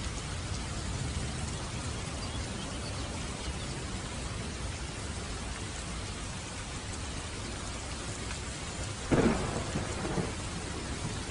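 Steady rain, with a sudden sharp crack of thunder about nine seconds in and a weaker one a second later.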